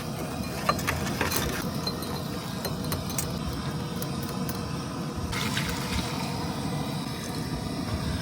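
Liquid being poured, with a few light clinks of glass, over a steady low hum.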